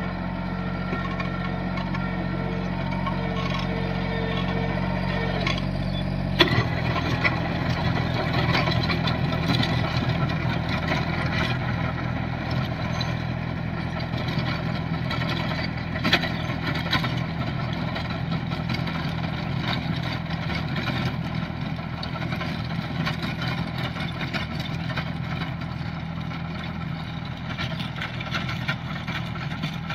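Mini tractor's diesel engine running steadily under load, driving a rotavator that churns through dry soil. The sound changes abruptly about six seconds in, becoming rougher and noisier.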